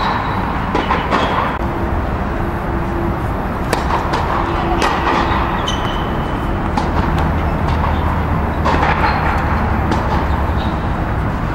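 Steady hall noise inside an indoor tennis dome, with a few sharp, scattered knocks of tennis balls being bounced or struck.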